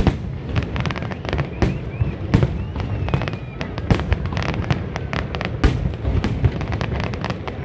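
Fireworks display: a dense, continuous run of sharp bangs and crackles, several a second, over a steady low rumble, with a few faint whistles.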